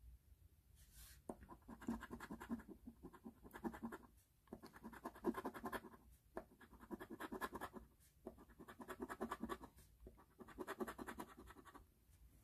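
A coin scraping the latex coating off an instant lottery scratch-off ticket, in five bouts of rapid back-and-forth strokes with short pauses between them, one bout for each spot scratched.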